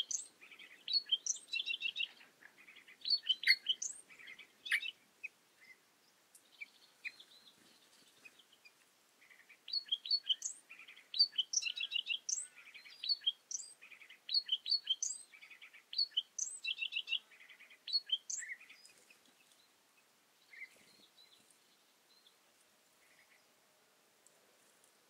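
A songbird sings a long, varied song of quick trills and sharp rising whistles. It comes in two bouts, the second starting about ten seconds in, and falls to a few faint notes after about nineteen seconds.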